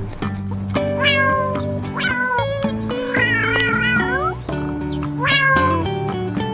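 Cat meows set over background music: four pitched, falling calls, the third drawn out and wavering, sounding like a meowing cat song.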